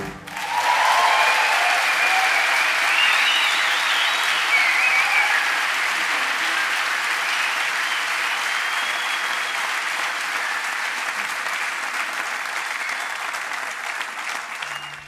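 Concert audience applauding after a song ends, with some cheering and whistles in the first few seconds. The applause slowly thins toward the end and then cuts off suddenly.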